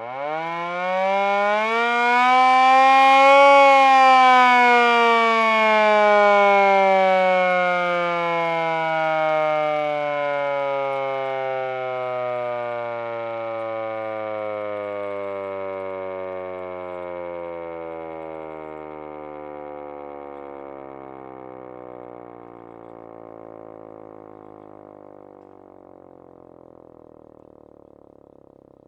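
Hand-crank emergency siren winding up, its wail rising steeply to a peak about three and a half seconds in. It then winds down slowly, the pitch falling and the sound fading over the next twenty-five seconds.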